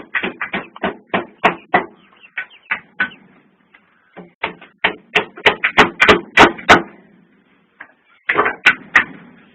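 Rapid series of sharp knocks, about three to four a second, breaking off briefly about four seconds in and again near the end.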